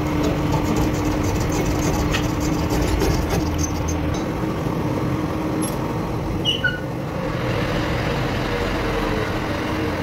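A machine running steadily with a continuous low hum, and a brief high squeak about six and a half seconds in.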